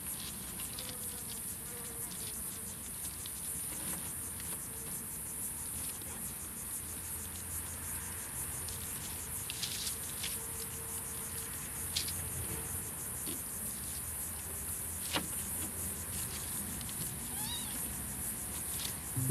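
Kittens scuffling in dry leaves and soil, with scattered small rustles and clicks, over a steady high insect drone. A faint kitten mew comes near the end.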